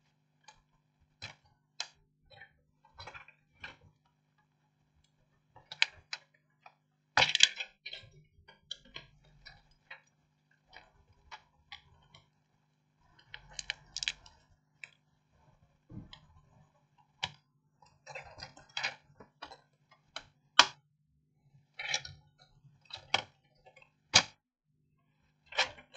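Irregular light clicks and taps of a small screwdriver and tools working on a laptop motherboard and its plastic case, with a few sharper clicks here and there, as the board is unscrewed and its connectors released to lift it out of the Asus X543N chassis.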